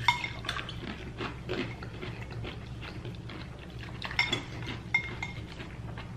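Metal cutlery clinking and scraping against a dish during eating, a scatter of small clinks with sharper ringing ones just after the start, about four seconds in and about five seconds in. A steady low hum runs underneath.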